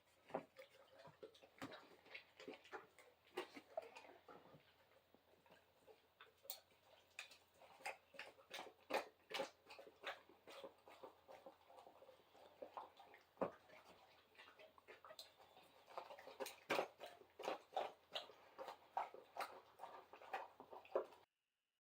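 Great Dane making faint, irregular clicks and smacks, the small mouth and movement noises of a large dog close to the microphone. They come more thickly in the second half and stop abruptly near the end.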